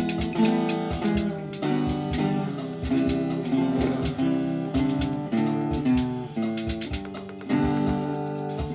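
Acoustic guitar music: a guitar playing a run of chords, with notes changing every half second or so over a regular strummed beat.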